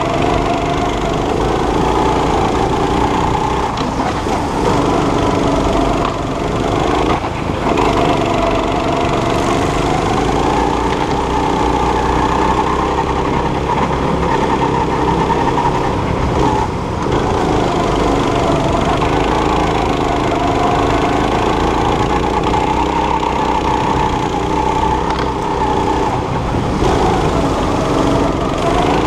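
Go-kart's small engine running hard, heard close up from on board, its pitch rising and falling with the throttle through the turns and dipping briefly a few times when the driver lifts off.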